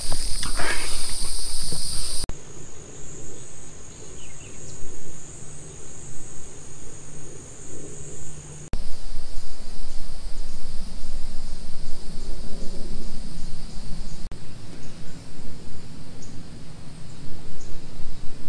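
Steady high-pitched buzzing trill of insects, shifting abruptly in pitch twice, over a low rumbling background.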